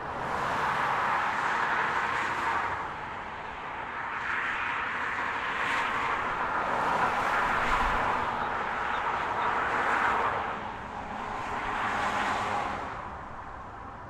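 Cars passing one after another on a divided interstate highway below, each a rushing swell of tyre and road noise that rises and fades. There are several passes in a row, with brief lulls between them.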